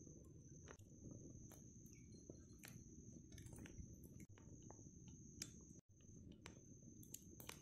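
Faint crackling of a freshly lit campfire, scattered small clicks, over a steady high-pitched insect drone.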